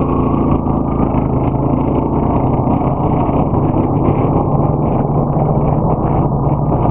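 Four-wheel-drive ATV engine running at a steady pace while riding, a constant low hum.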